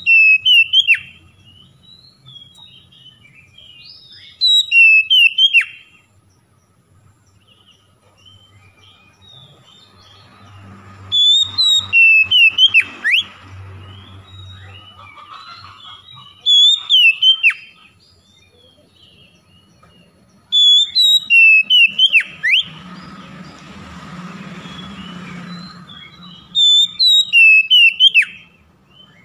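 Oriental magpie-robin singing: six loud phrases of clear, sharply rising and falling whistled notes, a few seconds apart, with soft twittering between them.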